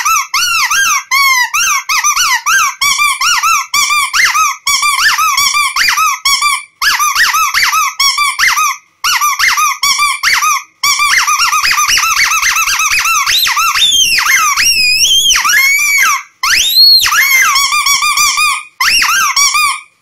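Rubber duck squeaky toy squeezed over and over, loud squeaks in quick runs with short breaks between them. Near the end come a few longer squeaks that slide up and down in pitch, and the squeaking cuts off suddenly.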